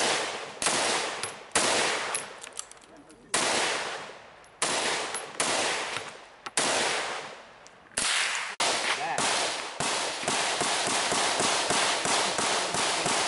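AR-15 rifle firing single shots, each a sharp crack with a trailing echo, spaced irregularly about a second apart. From about two-thirds of the way in, the gunfire turns quicker and more even, roughly three shots a second.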